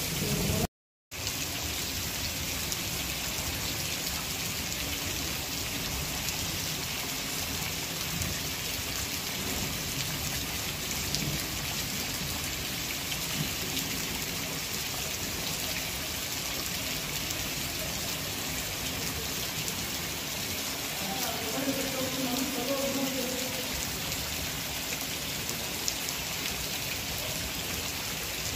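Heavy rain pouring down on a concrete yard and roofs: a steady, even hiss of rain, briefly cut out about a second in.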